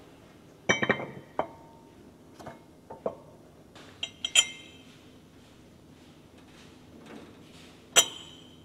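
Metal clinks and knocks from fitting the belt and fan drive sheave back onto a tractor engine: a cluster of knocks about a second in, a pair of ringing clinks around four seconds, and one loudest ringing clink near the end.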